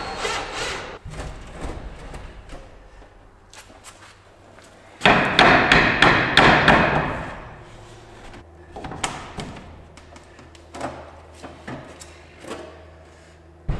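Handling noise at a metal electrical panel: scattered knocks, clunks and clicks, with a loud scraping rush about five seconds in that lasts around two seconds, as cables are worked against the wall and the panel's metal cover is handled. A faint low hum runs under the second half.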